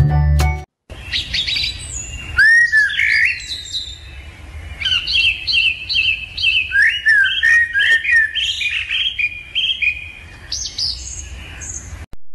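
Lovebirds chirping, a long series of short, sharp, repeated calls, some sliding up or down in pitch.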